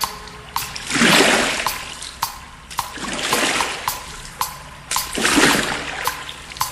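Electronic keyboard's ocean-wave sound effect: swells of hissing noise that rise and fall about every two seconds, like surf, over a short, even click nearly twice a second.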